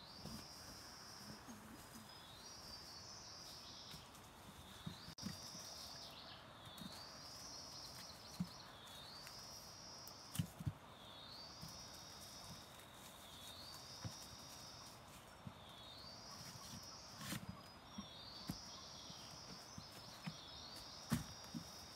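An insect's high buzzing call repeats about every two seconds, each call a short rising sweep that levels off into a held note. Under it are scattered soft thuds and rustles in dry bamboo leaf litter and a few sharp knocks as bamboo shoots are gathered into a basket.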